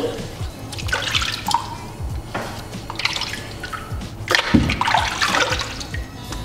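Water splashing and dripping in a water-filled tray as hands wet a whetstone and lift it out, with a few sharp knocks as the wet stone is set back into its holder.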